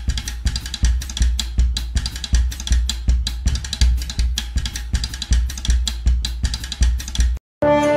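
Background music: a fast drum-kit beat with a heavy bass drum and snare strokes, cutting off briefly near the end.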